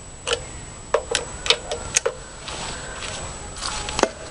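Small, irregular metallic clicks from a lawn mower carburetor's choke linkage being worked by hand, about seven in the first two seconds. A soft rustle follows, then one sharper click near the end.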